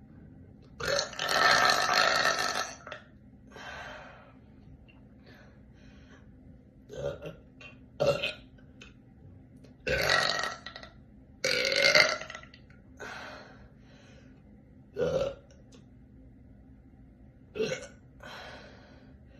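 A woman belching deeply and repeatedly. One long, loud belch of about two seconds comes near the start, followed by a string of shorter burps with pauses between them.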